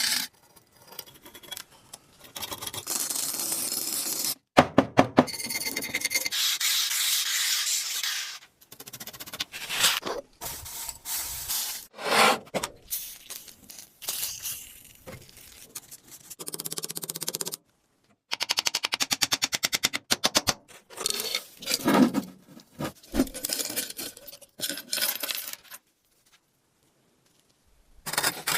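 Hand work on an antique flashlight in a run of short cut-together clips: rubbing, scraping and sanding strokes, a few sharp knocks, and a run of rapid, even ticks about two-thirds of the way in.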